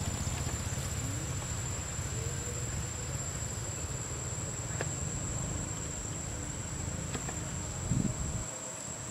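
Steady, high-pitched drone of insects over a low rumble; the rumble drops away near the end.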